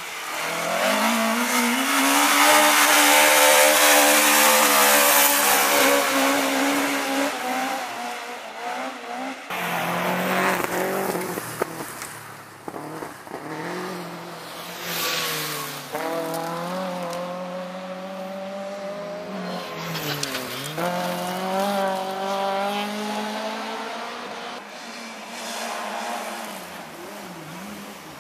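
Rally cars on a gravel forest stage passing one after another, engines revving hard with the pitch rising and falling as they lift off, change gear and power out of the bend. The loudest pass comes in the first few seconds.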